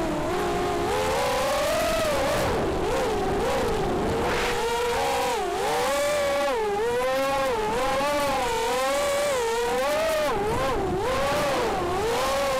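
Brushless motors and propellers of an Armattan F1-4B 180 mm FPV quadcopter (Cobra 2204 2300 KV motors, HQProp 4x4.5 props) whining in flight, the pitch rising and falling continually with the throttle.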